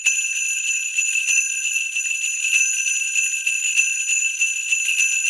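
Sleigh bells shaking steadily in a continuous jingle.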